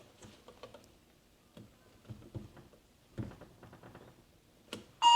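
Faint clicks and handling on the Arpha AL501 smart lock's interior unit as its cover is lifted and the reset button pressed, then a loud electronic beep from the lock starts right at the end.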